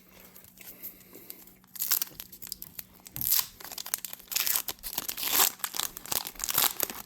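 Foil Pokémon booster pack wrapper crinkling and being torn open, a run of crackles that starts about two seconds in after a quiet moment.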